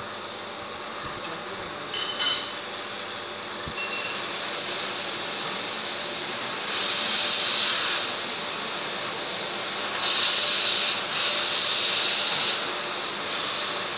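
Vertical boring machine spindle turning at low speed, its home-made cutter scraping metal as it cuts the gas-joint ring groove in a KamAZ cylinder head. A steady hiss rises louder twice, and there are two light metallic pings in the first few seconds.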